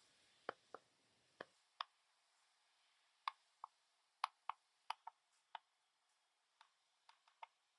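Faint, irregular clicks and taps of a stylus on a tablet screen during handwriting, about a dozen in all, with a short pause between them early on.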